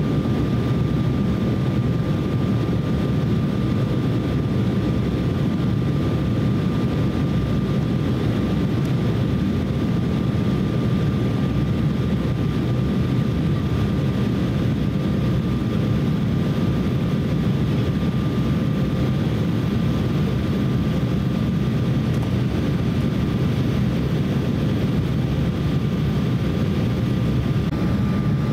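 Steady cabin noise inside an Embraer E170 jetliner on approach: the low rush of airflow and the hum of its CF34 turbofan engines, with a faint steady whine running through it.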